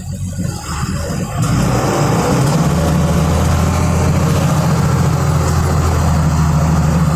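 Volkswagen 17.210 EOD bus's diesel engine running, its revs building over the first second or so and then holding steady.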